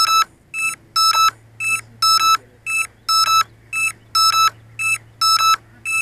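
A downed drone's electronic beeper sounding a repeating lost-model alarm: short beeps at the same pitch, about two a second, alternating a harsh buzzy beep with a softer, purer one.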